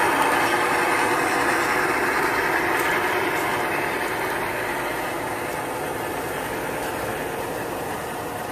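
G-scale model freight train led by a diesel locomotive running past on outdoor track, a steady running sound that slowly fades as the locomotive moves away and the cars roll by.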